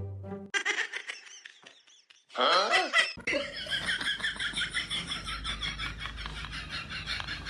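Laughter, a long run of quick rhythmic pulses starting about three seconds in, after a short louder vocal burst.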